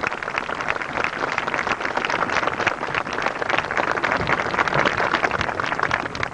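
Crowd applauding, dense clapping that thins out near the end.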